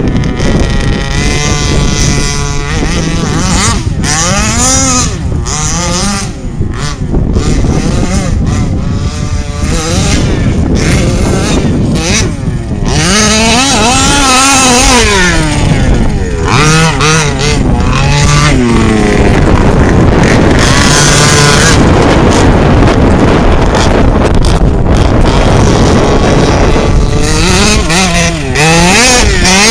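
Large-scale FG RC buggy's two-stroke petrol engine revving up and down over and over as the throttle is worked, with a longer stretch of steady high-rev running a little past the middle.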